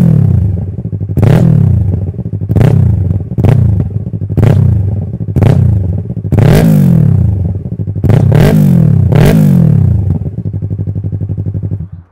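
Yamaha R3's 321 cc parallel-twin engine blipped repeatedly through an M4 Street Slayer exhaust with its baffle removed. Each sharp rise in revs falls quickly back, and the engine settles to idle near the end. The sound is silly loud.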